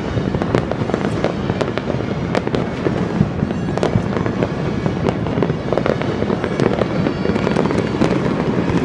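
Fireworks and firecrackers going off all across a city at once: a continuous din of distant bangs with sharp cracks every fraction of a second.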